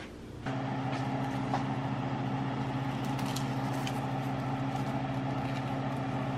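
A steady mechanical hum, like a small motor running, starting abruptly about half a second in, with a few faint ticks over it.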